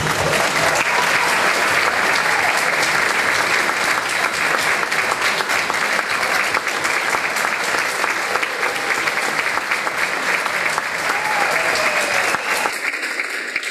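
Audience applauding: dense, steady clapping that thins near the end.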